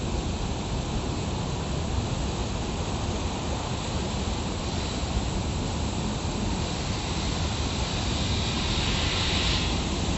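Rough sea surf breaking and washing over rocks, a continuous rushing noise with a heavy low rumble; a brighter hiss of foam swells up about eight seconds in and drops away just before the end.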